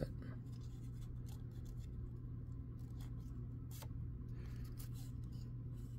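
Faint scattered ticks and light rustles of a thin paper strip being handled and folded between the fingers, over a steady low hum.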